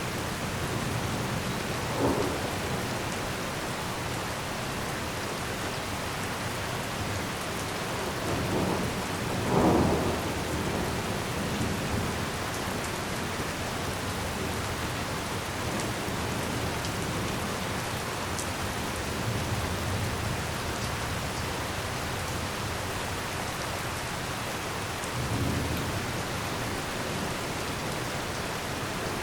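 Heavy rain falling steadily, a dense even hiss, with a few brief louder swells about 2, 9 and 25 seconds in.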